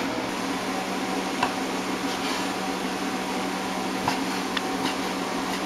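A steady mechanical hum throughout, with a few soft knife knocks on a wooden cutting board as a chef's knife slices through raw meat.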